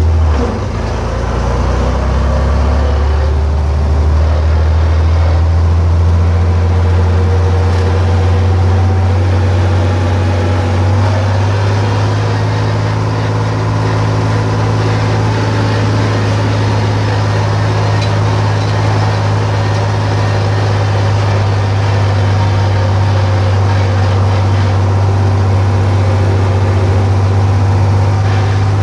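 John Deere 4020's six-cylinder engine running steadily under load as the tractor drives down the road towing a round baler, loud, heard from the cab with the windows open. The engine note rises slightly partway through.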